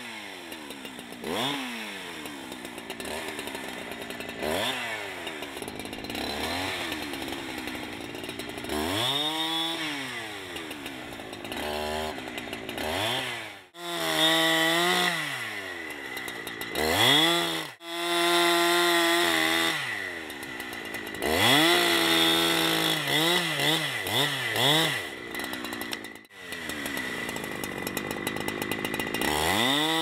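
Gas chainsaw revving up and dropping back toward idle again and again, with stretches held at high, steady revs while it cuts through a log. The sound breaks off abruptly a few times.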